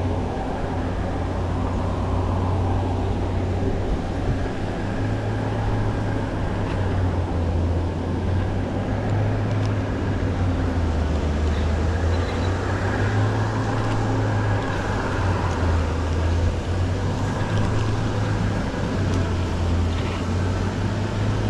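Steady low motor hum with churning water, from the pond's aerators running.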